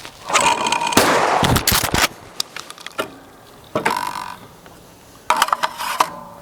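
Shotgun firing at a thrown clay target, the loudest blast about a second in, followed by more sharp cracks and clatter later on.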